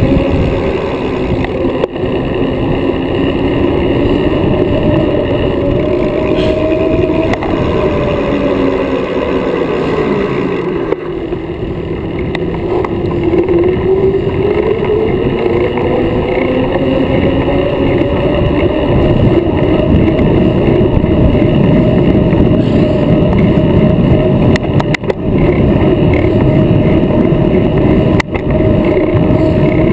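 Wind rushing over a camera mounted on a road bike riding at speed in a race, with a whining tone that drops in the middle and climbs back as the bike picks up speed. A couple of short knocks from road bumps come near the end.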